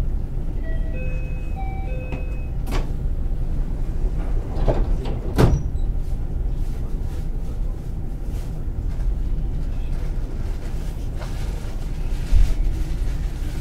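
Inside the cabin of a JR West 223 series 2000 electric multiple unit, the train runs with a steady low rumble. A few sharp knocks cut through it, the loudest about five and a half seconds in.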